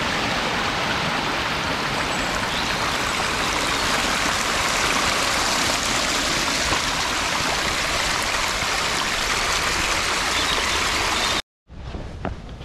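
A small hill stream cascading over rocks, a steady rushing of water. It cuts off abruptly near the end, and a few footsteps on stones follow.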